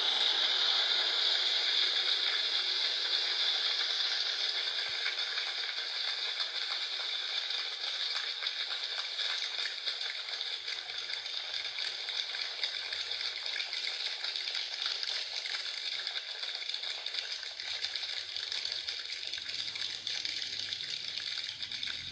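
Rain-like sound made with a finger: a dense, steady patter of fine ticks and hiss that slowly gets quieter.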